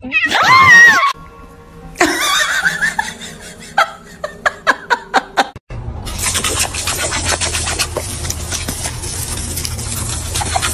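A short, loud, wavering cry that rises and falls, from a calico cat. It is followed by a few seconds of warbling cries and sharp clicks. From about six seconds in, a garden hose spray nozzle hisses steadily as a dog snaps at the jet, with many small splashy clicks.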